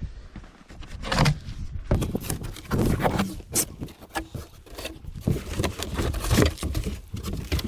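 Irregular scraping, rustling and knocking of the packaging of a vibratory screed being handled and pulled open.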